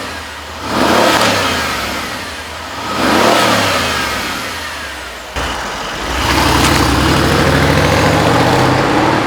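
Mercedes-AMG CLS 63 S twin-turbo V8 revving through a newly fitted Brabus variable exhaust: two quick blips whose pitch rises and falls, then from about six seconds in the revs are held up steadily.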